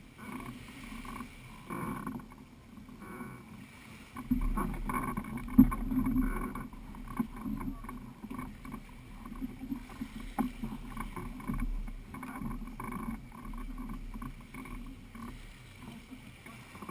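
Irregular knocks, bumps and water sloshing as people shift in an inflatable boat and handle its engine frame while the engine is off. The loudest part comes about four to seven seconds in, with one sharp knock in the middle of it.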